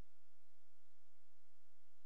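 Steady electronic tone: one constant pitch with a fainter one an octave above, over a low hum and faint hiss, unchanging throughout with no other sounds.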